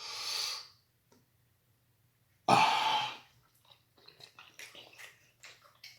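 A man's mouth and throat noises: a short breathy exhale at the start, then a louder rasping throat sound about two and a half seconds in, followed by light, scattered smacking clicks of the mouth.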